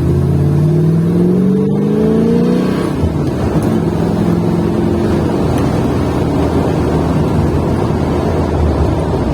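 Exhaust of a Ford 331 stroker small-block V8 in a 1966 Mustang, rising in pitch under acceleration for nearly three seconds, then dropping back and running on steadily as the throttle is eased. The pull is kept to moderate revs because the engine is still being broken in.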